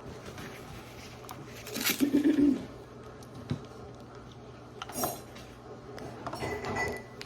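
Plates and cutlery clinking and knocking as breakfast dishes are handled, with the loudest clatter about two seconds in.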